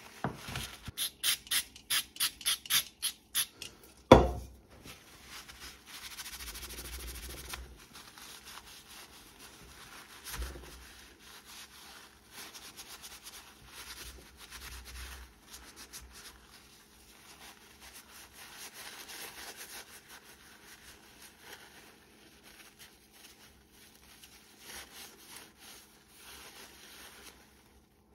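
A cloth rubbing over the metal and plastic of a pair of secateurs as they are wiped clean: quick rhythmic strokes, about three a second, for the first few seconds, then quieter, intermittent wiping. About four seconds in there is a single loud knock.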